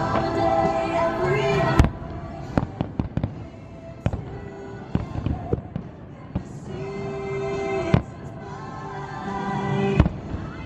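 Fireworks bursting with sharp bangs and crackles over the fireworks show's Christmas music. The biggest bangs come about two seconds in, at about eight seconds and near ten seconds, with runs of smaller cracks in between.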